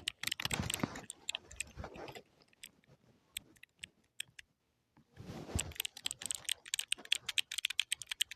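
Typing on a computer keyboard: a fast run of key clicks that thins to a few scattered presses about two seconds in, breaks off into dead silence for about half a second, then picks up again into rapid typing.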